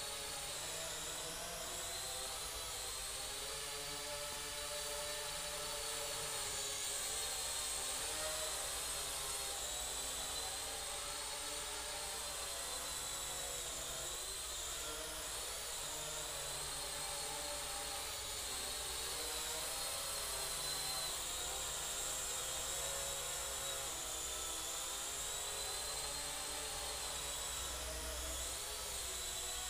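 Small toy VTOL RC plane (Falcon) in hovering flight, its propellers and small electric motors giving a steady high whine that wavers up and down in pitch.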